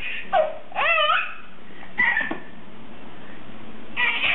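Baby squealing and giggling in short, high bursts whose pitch rises and falls, about four times.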